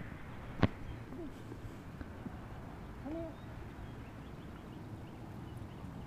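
Paws of an Old English Sheepdog running and pattering through snow, under a steady low background. A sharp click about half a second in, and a brief rising-then-falling tone about three seconds in.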